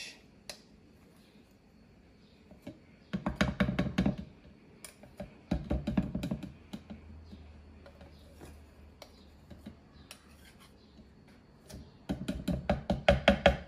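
A small metal spoon tapping and scraping against a plastic measuring cup and the rim of a plastic blender cup, knocking thick tahini out. The taps come in three quick bursts: about three seconds in, about six seconds in, and near the end.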